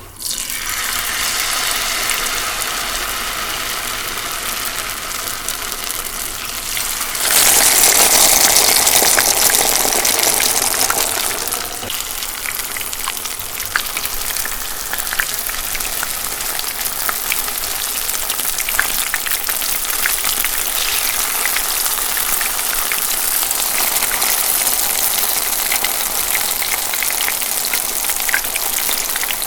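Tempura frying in hot oil: a steady sizzle with crackling pops. About seven seconds in, the sizzle swells louder and fuller, then settles back after about four seconds into steady crackling.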